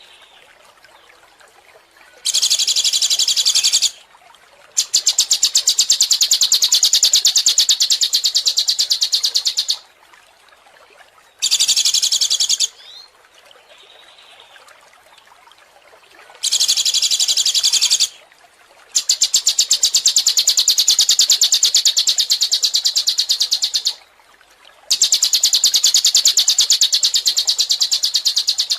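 A songbird singing in bursts of rapid, evenly repeated high notes, each burst lasting one to five seconds, with short quieter pauses between them.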